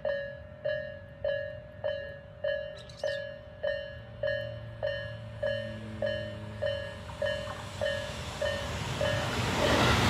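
Eerie-sounding level-crossing warning bell of the slow Tobu Nikko/Isesaki-line type. It strikes a single ringing tone a little under twice a second. In the last second or so an approaching electric train's running noise swells up over it.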